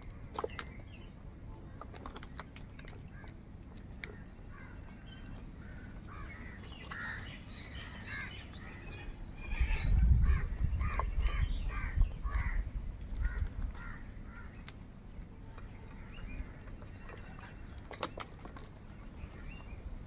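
House crows cawing over food, a flurry of short overlapping calls in the middle, with scattered sharp clicks and a low rumble under the calls about halfway through.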